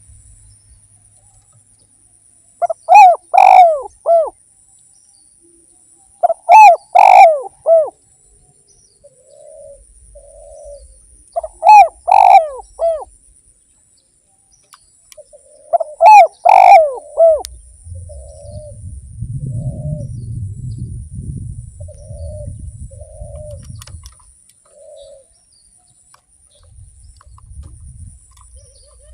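Spotted dove (derkuku) cooing: four loud phrases of several coo notes each, about every four seconds, with quieter single coos between them in the second half. A low rumble runs under the quieter coos.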